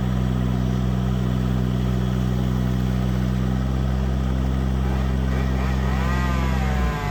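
Engine of tree-removal machinery running steadily with a deep hum, its pitch dropping near the end; over the last two seconds a thinner tone wavers up and down above it.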